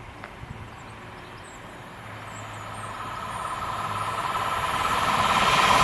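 An electric passenger train approaching at speed, its noise rising steadily as it nears, with a high ringing tone from the rails building up in the last few seconds.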